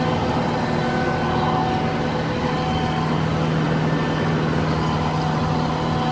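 Tractor engine running steadily at an even pitch while mowing.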